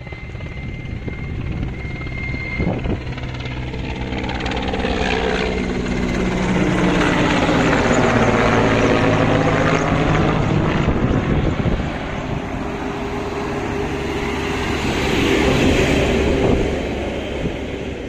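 Firefighting helicopter flying low past. Its rotor and engine sound swells to a peak about midway, falling in pitch as it goes by, then dips and swells again near the end.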